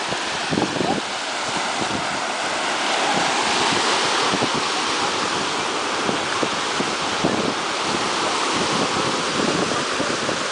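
Surf breaking on a sandy beach, a steady wash that swells a little louder a few seconds in, with wind buffeting the microphone in gusts.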